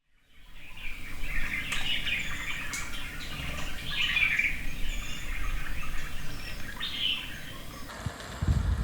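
Birds chirping and calling over a steady outdoor background, fading in at the start. Near the end the background changes abruptly and a few low thumps come in.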